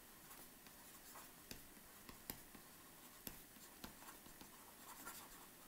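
Faint stylus writing on a tablet screen: light scratching with a handful of short taps as the pen tip meets the glass.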